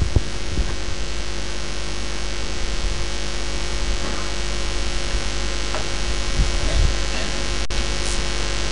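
Steady electrical hum and hiss from the mosque's sound system, with two soft knocks at the start and a brief dropout near the end.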